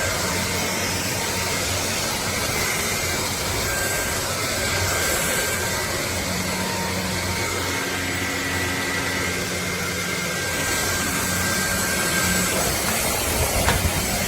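Dreame Z20 cordless stick vacuum running steadily, its motor giving an even rushing hiss with a faint whine, with a few light knocks near the end.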